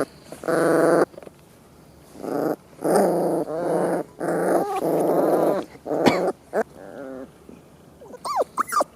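Stray puppy growling and whining in a string of drawn-out cries, each about half a second to a second long, with a few short, high yelps that rise and fall near the end.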